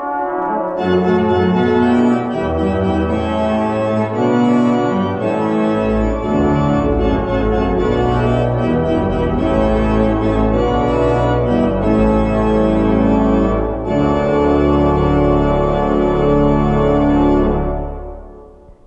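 Pipe organ music: sustained chords that grow fuller and brighter about a second in, with deep pedal bass notes coming in about six seconds in. The music fades out at the end.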